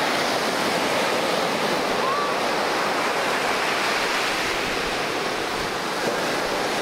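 Ocean surf: small waves breaking and washing up the sand, a steady noise.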